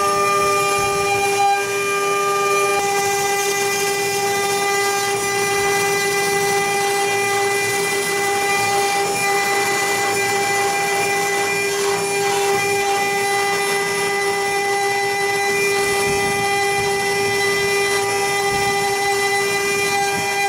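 Four-spindle CNC router with rotary axes running, its spindles giving a steady whine of several held tones as the bits cut workpieces turning in chucks.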